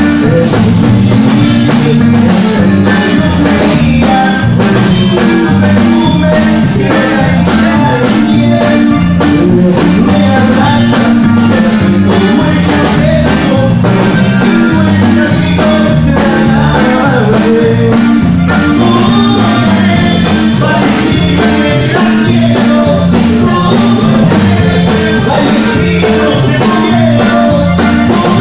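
Live Tejano band playing a song: a bajo sexto strummed in rhythm under a male singer's voice, with a steady drum beat.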